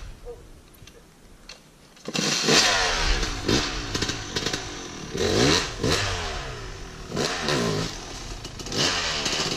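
Dirt bike engine revving hard, its pitch rising and falling about five times as the throttle is opened and closed, starting suddenly about two seconds in after a faint start.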